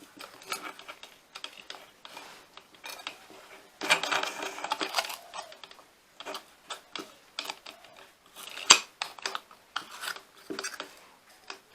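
Small metal clicks, scrapes and rattles of a newly machined grinder nut and a thin cutting disc being fitted onto an angle grinder's spindle and tightened. There is a longer scraping rattle about four seconds in and a sharp metal click a little before nine seconds in.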